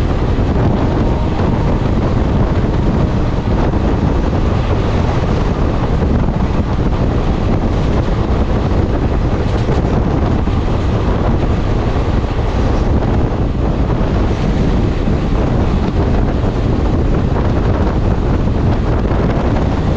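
Passenger train running at speed, heard from on board: a loud, steady rush of wheel-and-rail noise with wind buffeting the microphone.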